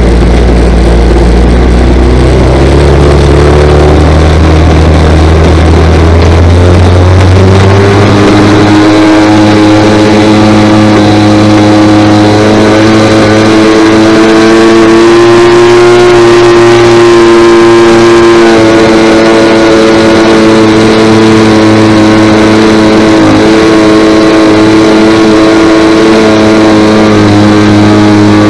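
DLE 30 single-cylinder two-stroke gas engine turning an 18x8 propeller, heard up close from on board. It throttles up from low revs over the first several seconds, then runs steady at high revs for the takeoff roll and climb.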